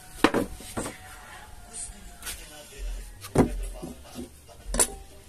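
Plywood boards being set down and handled on a wooden workbench, giving a few short, sharp knocks: one just after the start, one about three and a half seconds in and one near the end.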